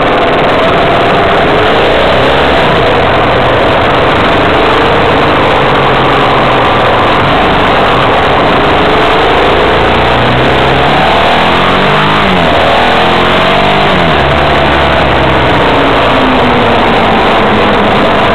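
Vehicle engine and road noise heard from a moving vehicle in traffic. The engine note rises and falls several times as the vehicle speeds up and slows, over a steady loud rush.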